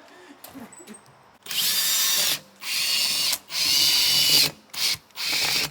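Power drill driving a self-tapping screw into a cast part in five stop-start bursts, beginning about a second and a half in, the fourth only a brief blip.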